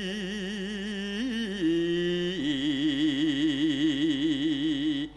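A singer holding a long, wavering melismatic note of a chanted Javanese verse (tembang), stepping down to a lower held note about halfway through.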